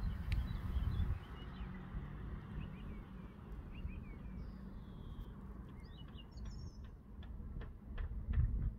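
Small birds chirping and calling, short high notes and a few brief downward whistles, over a low rumble of wind on the microphone that swells in the first second and again near the end.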